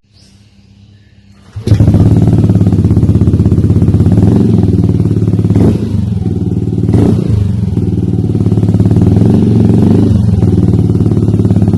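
Yamaha Aerox scooter's single-cylinder engine idling through an aftermarket Triton Neuro carbon-Kevlar exhaust, with a rapid even pulse. It cuts in suddenly after about a second and a half of faint sound, and has two brief louder moments around the middle.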